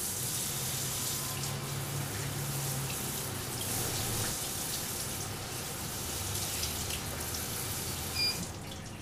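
Ozonated water running steadily from a water generator's tap as a piece of fish is rinsed under it, with a low hum beneath; the flow stops near the end.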